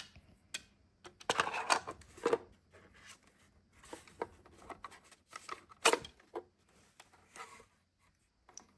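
Small parts and plastic packaging being handled: scattered light clicks and short rustles.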